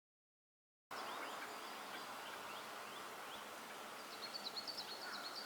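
Small birds chirping over a steady outdoor hiss, starting abruptly about a second in, with a quick run of chirps near the end.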